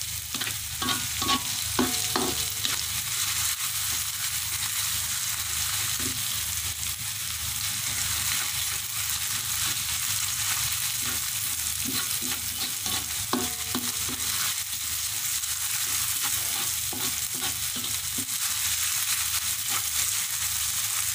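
Chopped garlic, shallots and spring onion sizzling in oil in a wok as they are sautéed until fragrant, stirred with a spatula that scrapes and taps against the pan many times.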